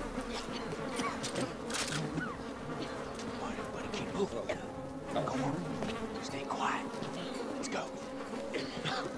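A swarm of flies buzzing steadily over rotting corpses.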